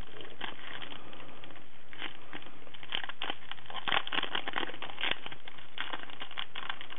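Clear plastic sleeve of a clear-stamp set crinkling and crackling as it is handled, in a string of small irregular clicks that grows busier from about two seconds in.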